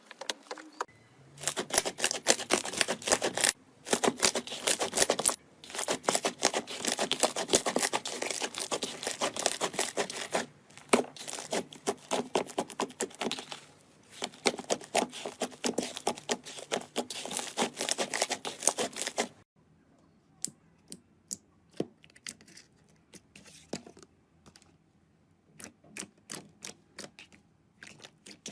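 Slime being worked by hand, crackling and popping densely in long runs with short breaks. After about two-thirds of the way through it turns to sparse separate pops and clicks.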